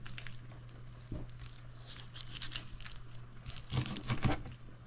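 A kitchen knife cutting and scraping raw chicken thighs on a cutting board as they are deboned: scattered soft scrapes and crunches, busiest near the end, over a steady low hum.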